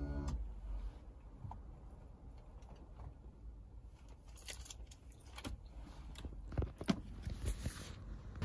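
A car's power-window motor whine stops just after the start, then faint scattered clicks, knocks and rustles of small handling inside the parked car.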